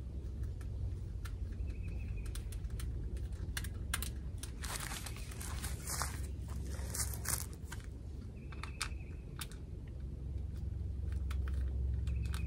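Scattered light clicks and small rattles of screws being handled and put back into their holes in a feeder's varmint cage, with a denser run of crackling clicks about halfway through, over a steady low rumble.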